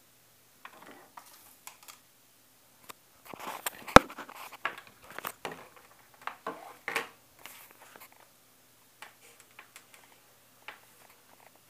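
Hands handling a USB hub's cable close to the microphone: irregular rustles, scrapes and small clicks, busiest in the middle, with one sharp knock about four seconds in.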